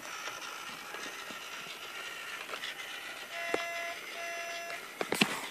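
Two short, steady toots about half a second apart, each lasting about half a second, from a toy train's electronic horn.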